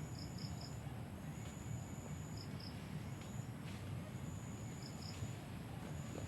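Insects, likely crickets, trilling in repeated high-pitched phrases about a second long, with a few short chirps in twos and threes between them, over a low steady rumble.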